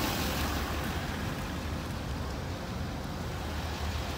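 Steady outdoor street noise from road traffic, an even hiss over a constant low rumble.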